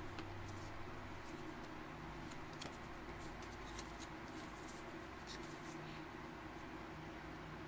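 Faint clicks and rustles of photocards being handled and fanned out in the hands, over a steady low hum.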